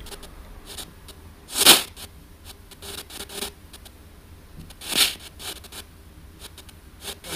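Spirit box sweeping through radio frequencies: choppy static broken by rapid clicks, with two louder bursts of hiss about a second and a half in and about five seconds in.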